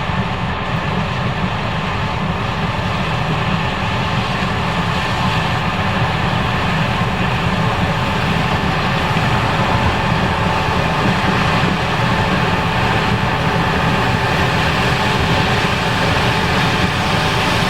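Case IH 5140 Axial-Flow combine running steadily while harvesting corn, a continuous mechanical drone of engine and threshing machinery.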